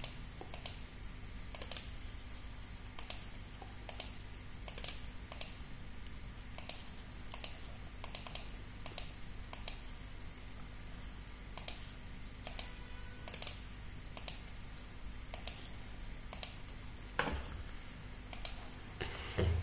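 Scattered sharp clicks of a computer mouse and keyboard, roughly one or two a second at an uneven pace, over a low steady hum.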